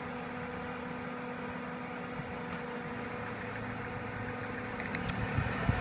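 A 2000 Dodge Neon's four-cylinder engine idles steadily while the car sits hung up on an off-road ridge. Near the end come a few low thumps and the sound grows louder.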